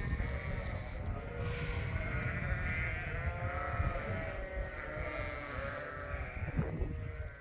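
A flock of Suffolk and Poll Dorset sheep bleating, many voices overlapping, as they are let out to pasture, over a steady low rumble.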